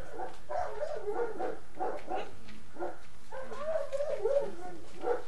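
A dog whining and yipping: short repeated cries, then a longer wavering whine about three and a half seconds in.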